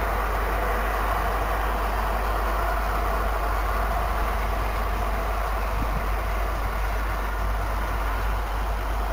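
Steady, even background noise with a constant low hum underneath, unchanging and without any distinct events.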